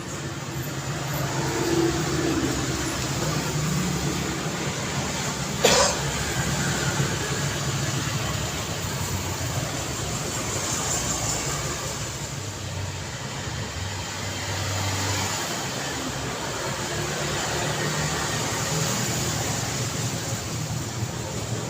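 City street traffic: cars passing with a steady hum of engines and tyres that swells and eases as vehicles go by. One sharp knock about six seconds in.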